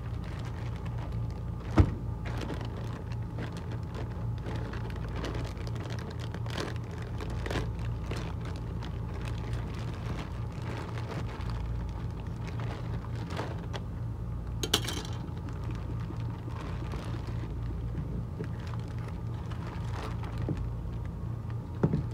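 Clear plastic zip-lock bag crinkling and rustling as hands open it and pull out a pair of slides, with scattered clicks, a sharp knock about two seconds in and a brief bright crackle later on, over a steady low hum.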